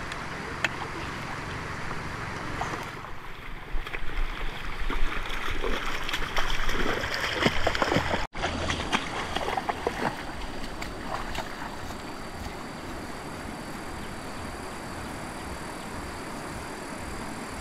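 Water splashing and sloshing, busiest in the middle, over a steady hiss of flowing water.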